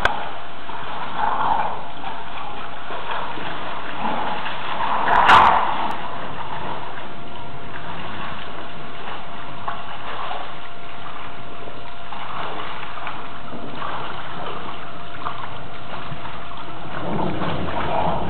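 Steady rain hiss, with a louder splash about five seconds in.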